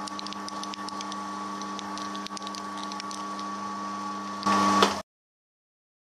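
Milling machine spindle running a chamfer bit into the threaded hole of an aluminium Revtech 110 cylinder head: a steady motor hum and whine with light ticking from the cut. It grows louder for half a second near the end, then cuts off abruptly to silence.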